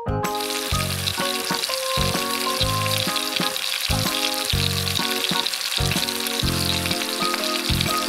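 Frying sizzle, a steady hiss that starts suddenly right at the outset, dubbed in as a cooking sound effect, since the plastic toy pan makes none of its own. It plays over background keyboard music with a steady pulse.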